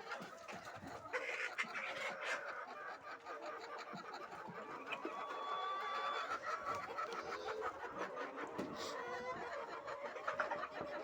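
A house of laying hens clucking and calling together, a dense continuous chatter of many birds, with a few sharp clicks and knocks mixed in.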